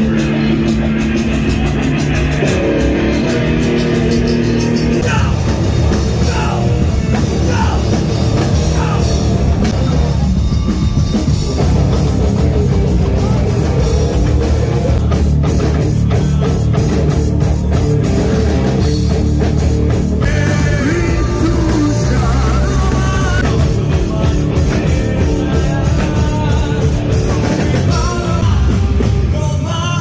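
Rock band playing loudly on stage: electric guitars over bass and drums.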